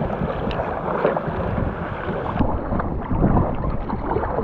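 Kayak paddle strokes dipping and splashing through choppy water, with wind rumbling on the microphone.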